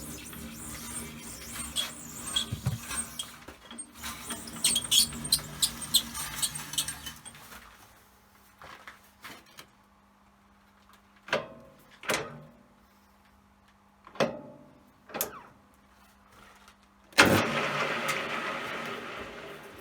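Lathe workshop noises. Several seconds of busy metal clattering and clicks come first, then a quiet stretch with a faint steady hum and four separate knocks. Near the end a loud rushing machine noise starts suddenly and dies away.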